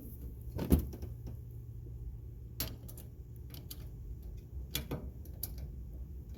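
Scattered metallic clicks and taps of a hand wrench working the nut on a work-light bracket's swivel bolt, over a low steady hum.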